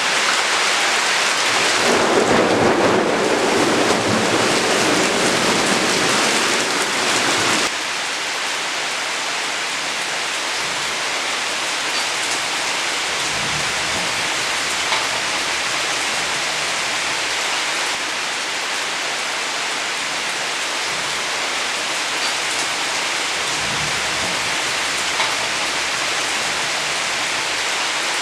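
Heavy monsoon rain pouring steadily, with a long roll of thunder through the first several seconds that cuts off abruptly about eight seconds in, leaving the steady rain.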